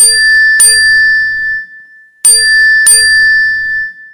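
Bell-like ding sound effect of an animated subscribe graphic: two quick bright dings, then the same pair again about two seconds later, each ringing on over a low rumble.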